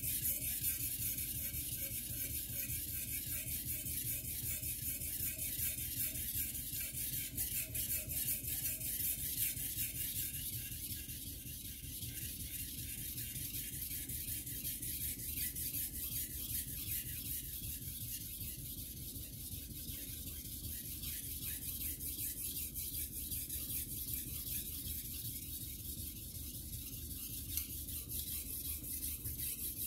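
Carbon-steel (Shirogami #2) gyuto blade being stroked back and forth on a wet whetstone: a continuous scraping and rasping of steel on stone.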